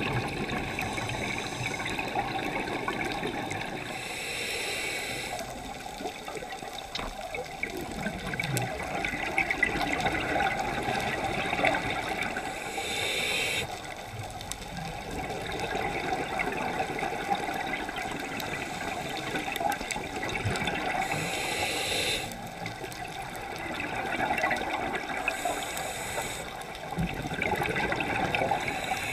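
Scuba diver breathing through a regulator, heard underwater: four hissing inhales spaced several seconds apart, with exhaled bubbles gurgling steadily in between.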